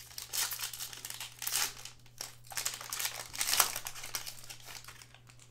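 Foil trading-card pack wrapper crinkling as it is torn open by hand, in a run of rustling bursts, the loudest about three and a half seconds in.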